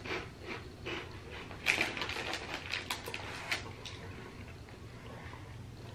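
Plastic snack bag of cheese puffs crinkling as a hand reaches into it: a run of quick crackles, busiest in the middle, then fading out.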